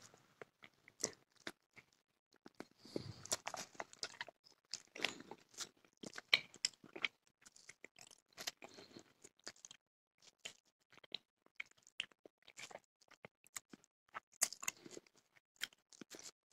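Crisp chocolate crunching and crackling close to the microphone: a quick, irregular run of small cracks and clicks, with louder clusters every second or two.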